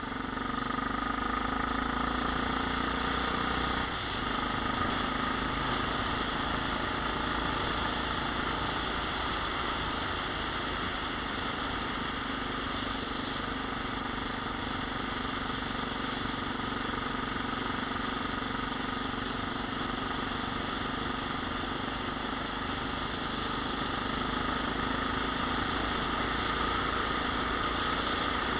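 Motorcycle engine running steadily under way, heard from on board with road and wind noise, with a brief dip in the engine note about four seconds in.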